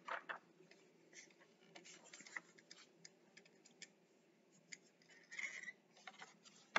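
Faint, scattered small clicks and scratchy paper-handling noises at a desk, with a brief rustle about five seconds in.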